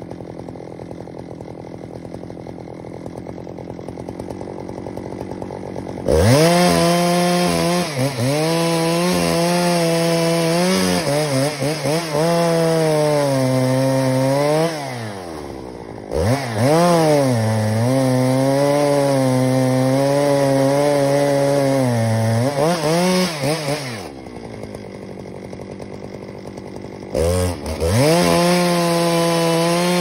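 Two-stroke chainsaw idling, then revved up and cutting into larch wood in three long spells. Under load the pitch wavers and sags, and between cuts it drops back to idle.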